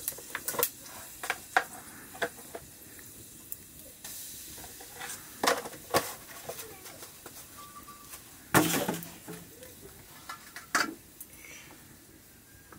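Scattered pops and crackles from spice frying in hot oil in an iron wok over a crackling wood fire, over a faint sizzle, with a louder short knock about eight and a half seconds in.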